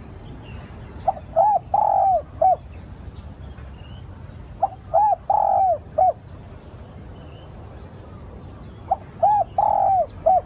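Spotted dove cooing: three phrases about three and a half seconds apart, each of four arching notes with the third note the longest.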